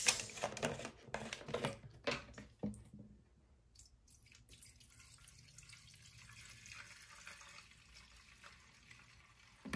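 Petrol being poured from a plastic fuel can into a lawnmower's fuel tank: a faint, steady trickle. A few clicks and knocks come first as the can is handled.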